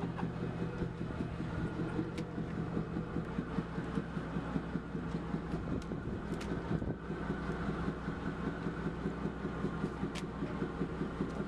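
Fishing boat's engine running steadily with a low, even drone. A few sharp clicks come about 2, 6 and 10 seconds in.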